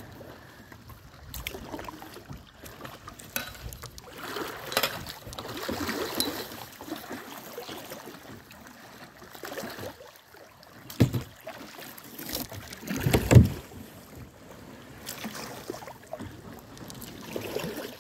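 Canoe paddling on a river: uneven swishes and splashes of paddle strokes in the water, with two louder thumps about eleven and thirteen seconds in.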